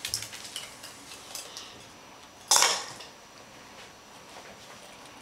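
A spoon clinking in a cereal bowl: a few light clicks, then one louder clatter about two and a half seconds in.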